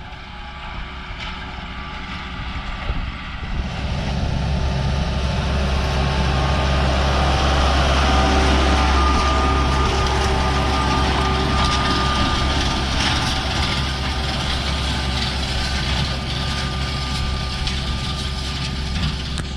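A Kubota M4 tractor's engine running steadily under load as it pulls a no-till seed drill, growing louder about four seconds in.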